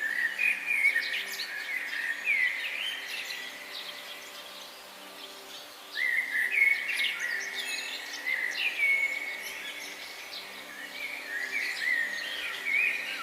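Birds chirping and singing in many quick rising and falling calls, quieter for a couple of seconds before picking up again about six seconds in, over faint steady low tones.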